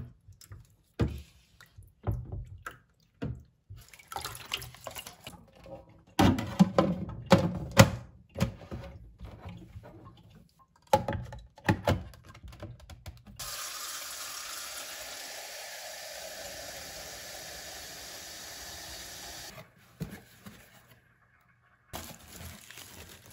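Clear plastic Brita pitcher and its filter cartridge being handled and fitted, with scattered knocks and clicks, loudest about six to eight seconds in. Then tap water runs steadily into the pitcher for about six seconds and cuts off. Kraft honeycomb packing paper crinkles briefly near the end.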